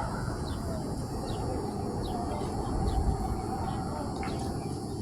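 An unidentified low growling rumble, swelling louder about three seconds in, with small birds chirping over it.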